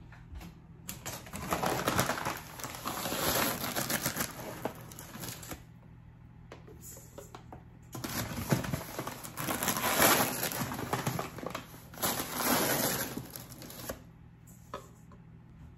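Sugar being measured out for a cake batter: a rustling, crackling pour of granulated sugar with crinkling of its bag, in two long stretches of about five seconds each.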